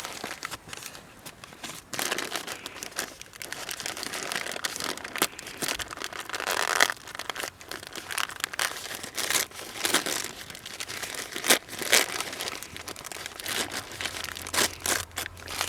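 Crinkly material being crumpled and handled, making irregular sharp crackles and rustles that swell and fade.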